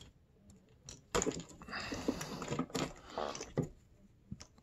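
Light clicking and rattling of choke cables and their small brass fittings being handled, starting about a second in and stopping shortly before the end.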